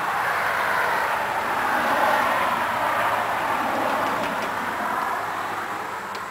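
Bosch power saw cutting wood, milling it into one-inch boards: a steady, noisy whir that tapers off over the last second or so.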